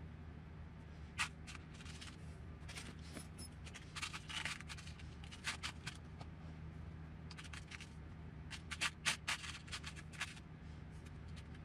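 Small metal screws clinking and rattling against each other in a plastic tub as fingers rummage through them, in irregular clusters of light clicks.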